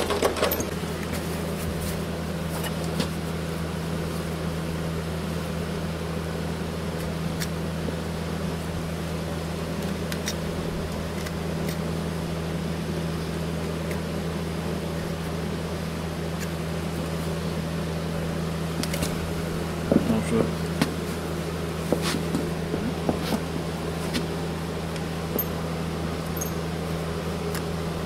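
Steady low mechanical hum, with a few short scrapes and clicks in the second half as a hoof knife cuts at a horse's hoof.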